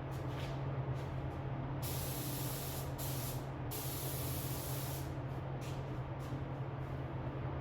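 Primer being sprayed onto a car's repaired front wing in short hissing bursts: a few quick puffs, then three longer passes in the middle, then more short puffs.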